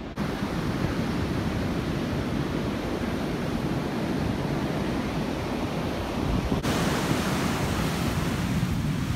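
Steady rush of ocean surf breaking on a beach, with wind noise on the microphone.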